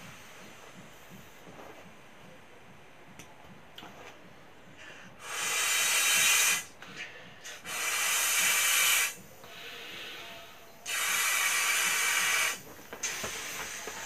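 Three long breaths blown by mouth into the valve of a clear inflatable beach ball, each a rush of air about a second and a half long, separated by short pauses, with faint clicks of plastic being handled before them.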